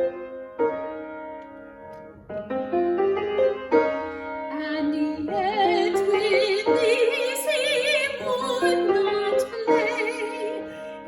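Classical art song for female voice and piano. Piano notes and quieter singing come first, then from about five seconds in the singer's voice grows louder with a wide vibrato over the piano.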